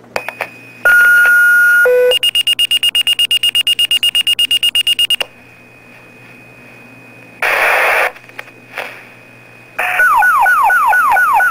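Fire-department voice pager being set off by a dispatch page. A steady tone and then a short lower tone sound, followed by about three seconds of rapid alert beeping at roughly ten beeps a second. After a burst of radio static, a warbling alert of falling chirps, about four a second, starts near the end, ahead of the dispatcher's voice.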